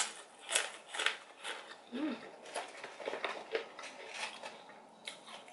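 Close-up chewing of a mouthful of rujak, grated raw tuber and lettuce in peanut sauce, with crisp crunching noises about twice a second. There is a short hummed murmur about two seconds in.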